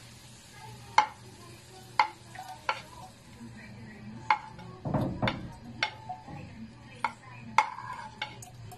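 A spoon clinking against a ceramic plate as chopped garlic and onion are pushed off it into coconut milk in a pan: a series of sharp, separate clinks, with one duller thump about midway.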